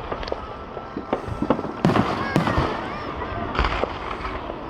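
Aerial fireworks exploding in a quick irregular series of sharp bangs, about half a dozen, the loudest pair about two seconds in, with crowd voices under them.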